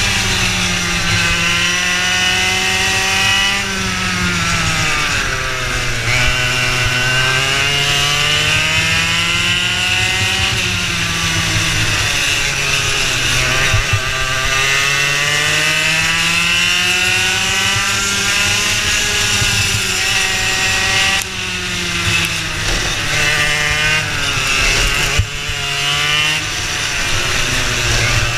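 Racing kart engine heard from onboard, running hard. Its pitch climbs for several seconds at a time and then drops away, rising on the straights and falling under braking into the corners, several times over.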